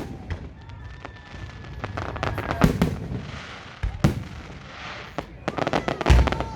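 Fireworks display: aerial shells bursting in sharp bangs at irregular intervals, with hissing and crackling between them. A dense run of crackles builds near the end and peaks in the heaviest bang about six seconds in.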